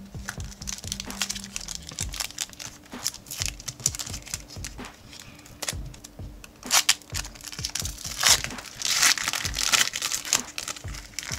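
Trading-card pack wrapper being crinkled and torn open, an irregular run of crackling with the loudest bursts in the second half.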